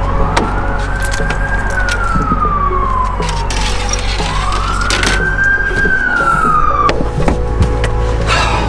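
A wailing siren, its pitch slowly rising and falling in two long sweeps.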